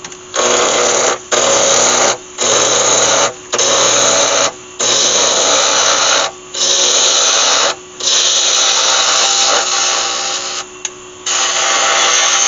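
Galaxi DVR wood lathe coming up to speed, its motor hum rising at the start and then holding steady. A turning tool cuts a spinning sycamore blank in repeated strokes of about a second each, a loud hiss of shavings with short pauses between strokes.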